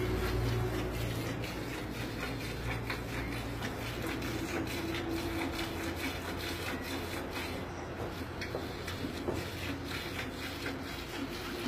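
A Holstein cow being milked by hand: repeated jets of milk squirting into a pail in a steady rhythm, over a low background hum.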